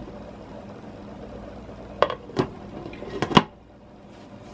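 Covered stockpot of soup bubbling on the stove, a soft steady noise, with four sharp clicks and knocks of kitchen handling between about two and three and a half seconds in.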